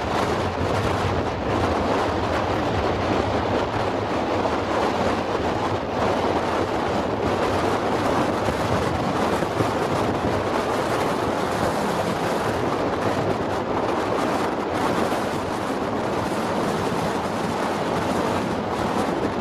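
A vehicle driving along a road: a steady engine rumble under heavy wind noise buffeting the microphone.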